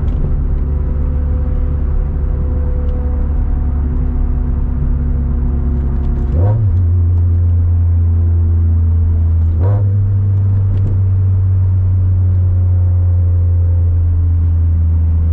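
Turbocharged 2013 Scion FR-S's 2.0-litre flat-four engine running under way, a steady low drone. About six seconds in, the note steps up in pitch and gets a little louder.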